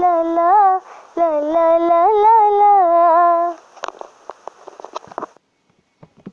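A young female voice humming a wordless melody in long held notes with no accompaniment, pausing briefly about a second in and stopping about three and a half seconds in. A scatter of small clicks and rustles follows.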